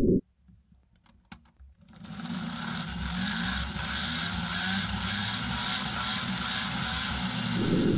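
Hand-cranked LEGO gear train made of plastic gears spinning a wheel flywheel up to several thousand RPM. A few faint clicks come first, then a whirr of meshing gear teeth that builds over about a second and holds steady as the speed climbs.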